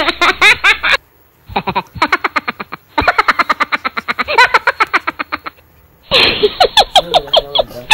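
High-pitched laughter in quick repeated giggling bursts, which stops abruptly twice for about half a second.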